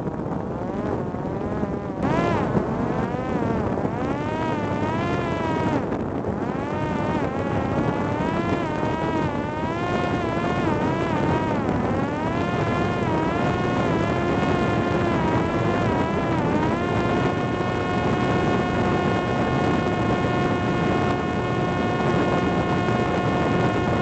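Parrot Disco fixed-wing drone's electric motor and propeller whining with a buzz, its pitch wavering up and down with throttle, then holding steady for the last several seconds, over rushing wind.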